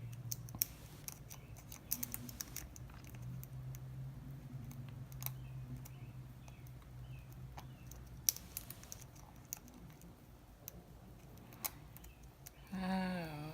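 Lock pick and tension wrench working the pin stacks inside a Wilson Bohannon padlock: small, irregular metallic clicks and light scrapes as the pins are lifted and set. A brief hummed 'hmm' near the end.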